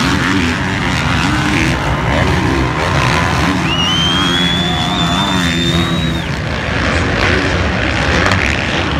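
Motocross dirt bike engines revving up and down as bikes race through the turns, over a steady wash of engine noise from the rest of the track. A high whine rises and holds for a couple of seconds in the middle.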